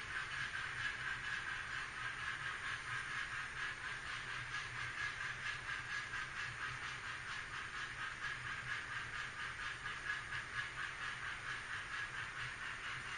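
Empty HO scale model coal hoppers rolling along the track: a steady metallic rolling clatter of small wheels on rail, with rapid fine clicks and a low hum underneath.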